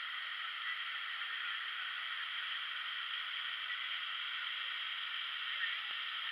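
Steady rushing of a waterfall, an even hiss of falling water without a break.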